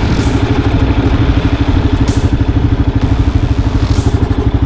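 Motorcycle engine running steadily under way, heard close up from the bike itself, with an even pulsing beat.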